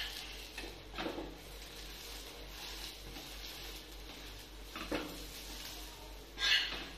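Metal spatula scraping and knocking against a flat nonstick pan as an omelette is pushed and lifted: a few separate strokes, about a second in, around five seconds, and loudest near the end.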